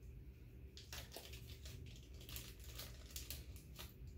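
Faint crinkling of a small gift wrapper being handled and pulled open by hand, a quick run of crackles starting about a second in.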